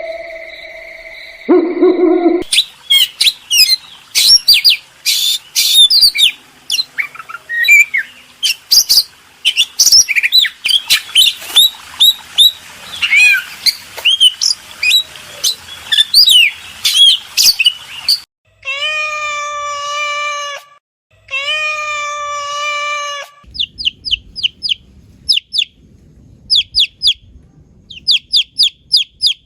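A run of animal calls, mostly birds: a brief steady hoot-like tone, then many varied chirps and whistles together, then two long even-pitched calls of about two seconds each, and finally quick bursts of short, very high chirps.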